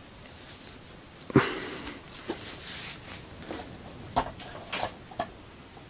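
Small clicks and knocks of hands handling an ESR meter and its test leads as it is readied to measure a capacitor. One sharper knock comes about a second and a half in, followed by a few lighter clicks.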